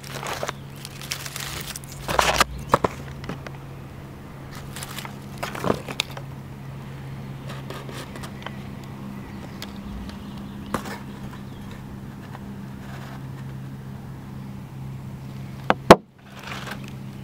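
Scattered crackles and rustles in dry leaf litter and twigs over a steady low hum, with one sharp knock near the end.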